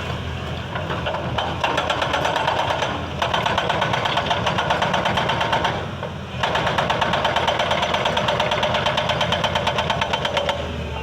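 Excavator-mounted hydraulic rock breaker hammering rapidly, about five blows a second, over the running diesel engine. It stops briefly twice, about 3 s and 6 s in.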